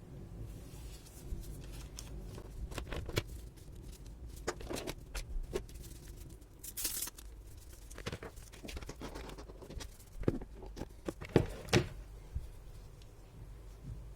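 Handling and unwrapping of packaging: scattered clicks and knocks with crinkly rustling, and a brief tearing sound about seven seconds in.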